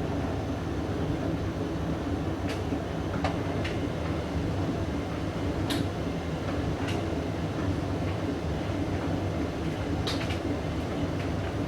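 Hoover DYN9144D3X washing machine running with a load of blankets: a steady low rumble from the motor and turning drum, with a few sharp clicks scattered through.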